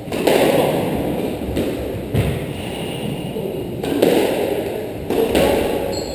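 Squash rally: the ball struck by rackets and hitting the court walls, a sharp thud every second or so, each followed by a short echo.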